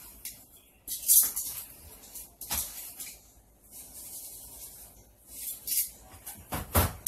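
Chicken pieces being coated in dry breadcrumbs in a bowl: several short scraping and rustling sounds of metal tongs working the meat through the crumbs and crumbs shaken from a canister, the loudest near the end.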